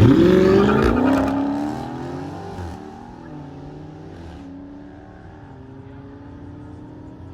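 A car accelerating hard, its engine note climbing steeply in the first second with a rush of noise, then drawing away and fading over the next few seconds while a quieter engine note carries on.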